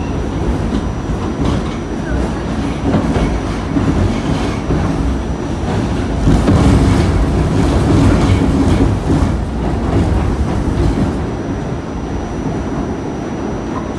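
Inside an R46 subway car running between stations: the wheels clatter over the rail joints under a steady rumble, growing louder for a few seconds in the middle.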